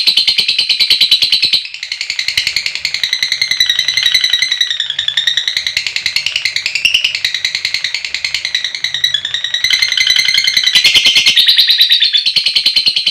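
Lovebird singing a long 'ngekek' chatter: a fast, high-pitched rattling trill whose pitch wavers up and down, briefly easing off about 1.5 s in and breaking for a moment near the end.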